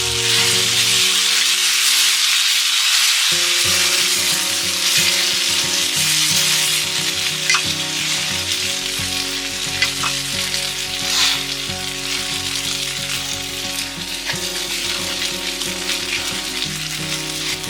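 Food frying in a pan with a steady sizzle and a few sharp ticks of spattering fat, over background music.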